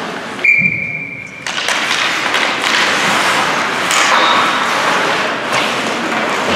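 Game noise in a hockey rink: crowd voices and thuds, with a high steady tone for about a second, starting about half a second in.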